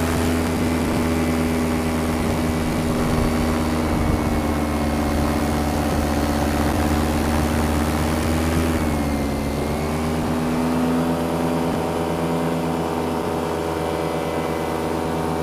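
Paramotor's two-stroke engine and propeller running steadily in cruise flight; the pitch dips briefly and recovers about nine seconds in.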